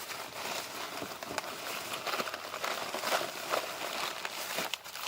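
Plastic sweet packaging crinkling and rustling as it is handled.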